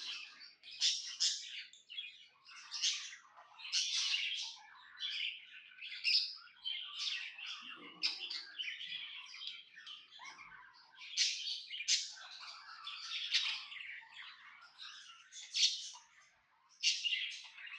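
Budgerigar chirping and chattering almost without pause, quick high chirps and warbles, with a brief lull near the end.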